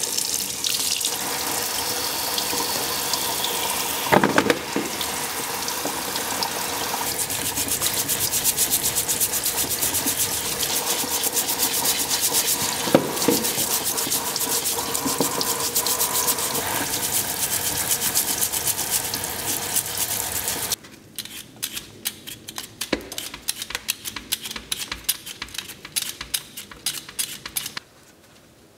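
Kitchen tap running into a sink as carrots and beets are rinsed under it. The water cuts off suddenly about 21 seconds in, followed by lighter, irregular clicks and knocks of the vegetables being handled.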